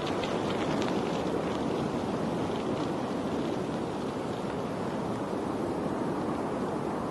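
Steady rush of running water, with faint light splashing crackles in the first few seconds.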